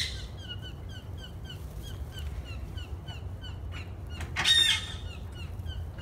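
Blue jay calling, with one loud harsh call about four and a half seconds in, over a steady run of short high chirps at about three a second.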